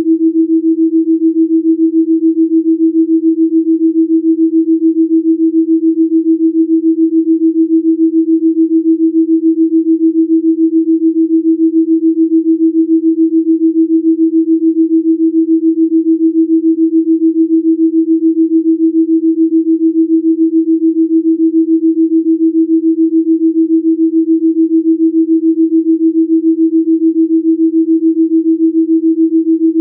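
A single steady pure sine tone, a delta binaural-beat healing tone, held without change and pulsing evenly several times a second.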